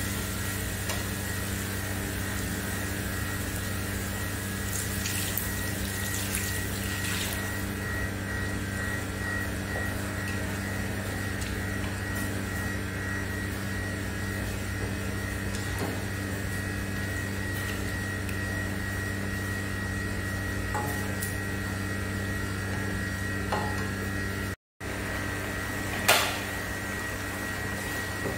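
Curry gravy simmering in a nonstick wok under a steady mechanical hum, with one sharp clack of the spatula against the pan a couple of seconds before the end.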